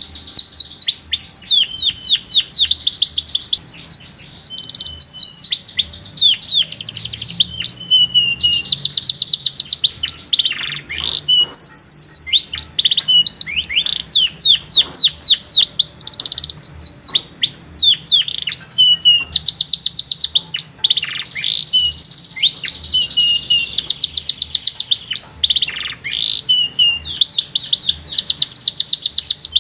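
Domestic canary singing loudly without a break: fast trills of rapidly repeated high notes, run after run, broken by quick downward-sweeping whistled notes.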